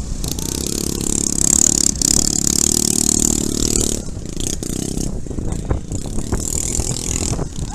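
Small motor scooters racing on a dirt track, their engines running with a steady drone and a high hiss. About four seconds in the sound changes abruptly to a rougher mix of engine noise and scattered knocks.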